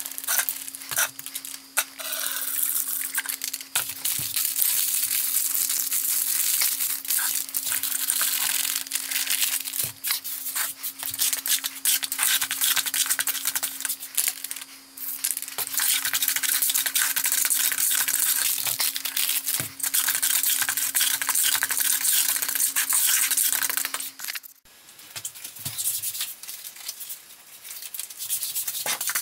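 Grout being stirred and scraped in a plastic bucket, sped up: a dense run of scraping and clicking over a steady low hum. The hum cuts off suddenly near the end.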